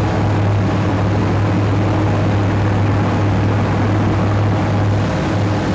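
Fishing boat's engine running steadily underway, a low, even drone under the rush of wind and water past the hull.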